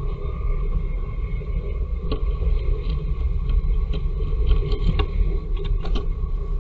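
A steady low rumble, with scattered light taps and scratches of a blue tit's claws on the wooden nest box as it lands at the entrance hole and climbs in, the taps coming thicker in the last few seconds.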